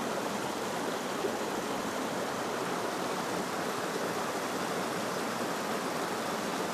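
A shallow river rushing over rocky riffles, a steady, even water noise.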